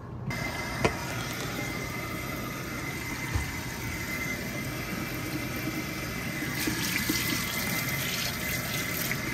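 Kitchen faucet running into a stainless steel sink, turned on just as the sound begins and then flowing steadily. The splashing gets a little louder and brighter past the middle.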